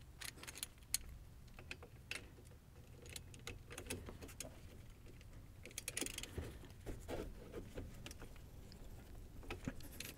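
Faint, scattered metallic clicks and clinks of a ratchet wrench working on the steel bolts that hold a disc brake caliper, coming unevenly with small clusters of clicks about six seconds in and again near the end.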